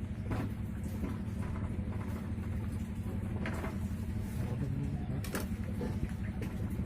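Small two-stroke brush cutter engine idling steadily after a piston and ring rebuild, with a few light clicks of parts being handled.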